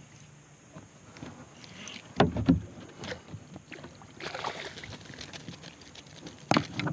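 Water splashing and a few knocks at the side of a kayak as a small hooked trout thrashes at the surface, loudest a little over two seconds in and again near the end.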